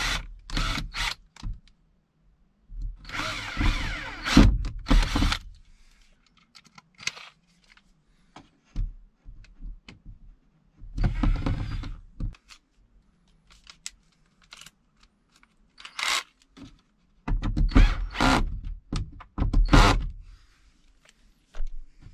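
Cordless drill driving screws into a wooden ceiling panel to fix a wall bracket. It runs in several separate bursts, the longest about two and a half seconds, with faint clicks and knocks between them.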